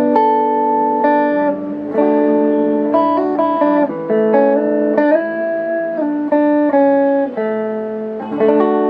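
Electric guitar played clean through a custom Fender-style combo amp with its tone switch on the rhythm position: held chords and single notes changing about once a second, with a few short slides.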